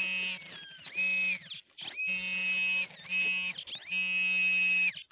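Metal detector sounding a series of about five electronic signal tones, each half a second to a second long with short gaps, indicating a metal target in the soil.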